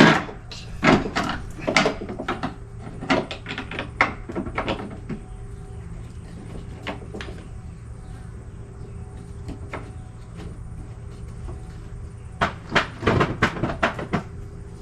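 Scattered knocks, clicks and clunks of lawnmower parts being handled during assembly, busiest in the first few seconds and again near the end.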